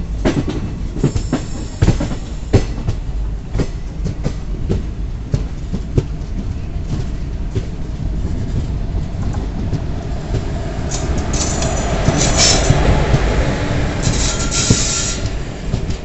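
Passenger train coaches rolling over the track, their wheels knocking over rail joints and rumbling. Short high wheel squeals come twice in the second half, as the sound grows a little louder.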